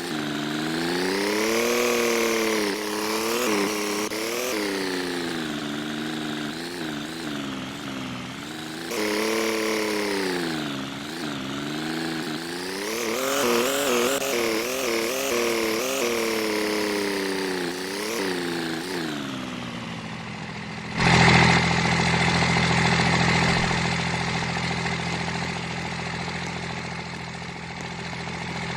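An engine running, its pitch rising and falling again and again with the throttle. About two-thirds of the way through it changes abruptly to a steadier, rougher engine sound.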